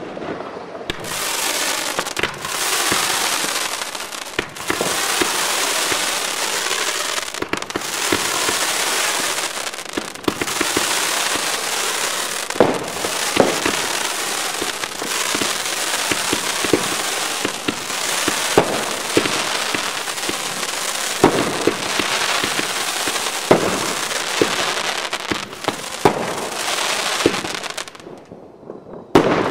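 Consumer fireworks, fanned comet tubes and a Miami Nights, firing in quick succession: a continuous hissing rush of launches broken by short pauses. Sharp cracks come through from about halfway on, and the firing dies down shortly before the end.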